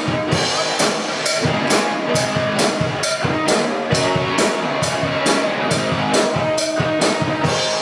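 Rock band playing live: a drum kit hitting about twice a second under guitar.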